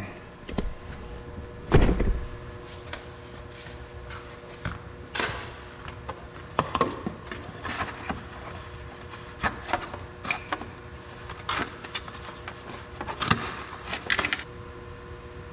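Irregular light knocks, taps and scrapes of a cardboard template being handled, held up against the car and marked, with one louder knock about two seconds in, over a steady shop hum.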